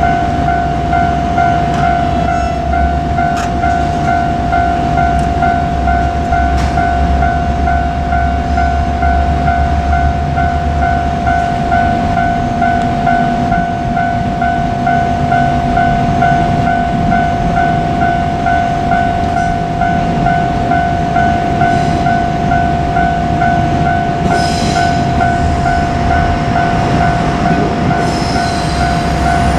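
Japanese level-crossing warning bell ringing in an even, repeating pattern, over the low rumble of a diesel railcar on the line. Brief high-pitched squeals come twice near the end.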